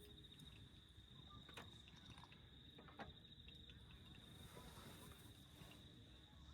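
Faint, steady high-pitched insect trill over a low background hiss, with a couple of sharp clicks about one and a half and three seconds in.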